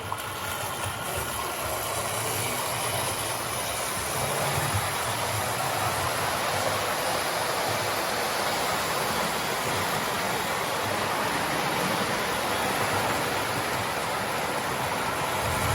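An old post-war Lionel O gauge conventional steam locomotive running forward on tubular three-rail track, with a steady motor and wheel clatter. It gets louder over the first few seconds, then keeps an even pace.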